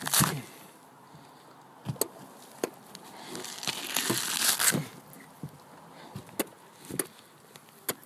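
Fibrous coconut husk being ripped with teeth: a crackling tear right at the start and a longer rasping tear a few seconds in, with scattered sharp clicks and knocks between.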